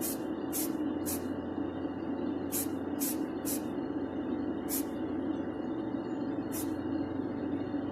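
Short hissing bursts of paint spray, about eight quick squirts, some in groups of two or three, as beige paint is sprayed onto a masked die-cast toy car body. A steady low machine hum runs underneath.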